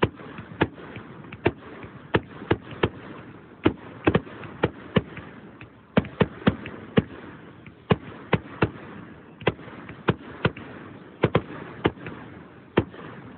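Fireworks going off: an irregular string of sharp bangs, sometimes several in quick succession, about two a second on average.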